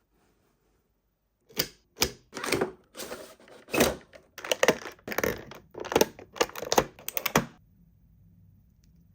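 Toys and their packaging being handled: a quick run of clicks, knocks and rustles lasting about six seconds, then it stops.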